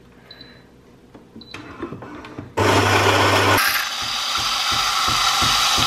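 A Philips bean-to-cup espresso machine starting a coffee: a few faint clicks, then about two and a half seconds in its built-in grinder starts suddenly and grinds the beans in a steady, dense crackling whir, with a low motor hum in its first second.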